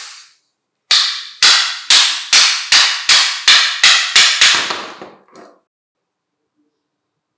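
About ten sharp knocks, a little over two a second, as a wooden stick strikes the metal motor of a vintage National KP-150S electric pencil sharpener to drive the rotor out of its stator. Each knock has a short ringing tail, and a fainter last knock follows a second later.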